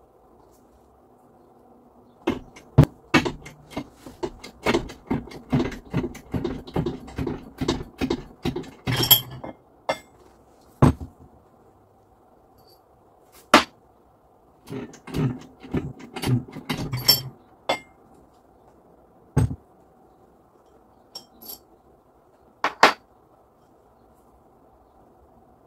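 Hand tool striking metal parts: a quick run of knocks, about three a second, for several seconds, then a few scattered single and double knocks.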